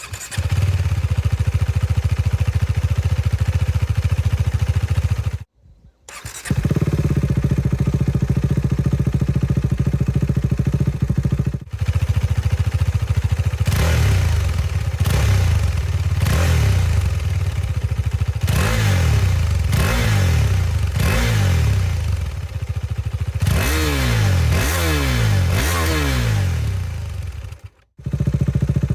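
2022 KTM 390 Duke's single-cylinder engine starting and idling through its stock exhaust. After a cut, it idles through a LeoVince GP Corsa Evo slip-on run without its db-killer baffle. After another cut, the stock exhaust is heard again through a long series of controlled throttle blips, each rev rising and falling back, before a last abrupt cut.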